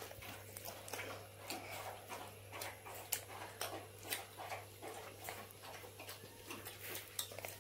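A person chewing a mouthful of shawarma, with irregular wet mouth clicks and lip smacks, over a low steady hum.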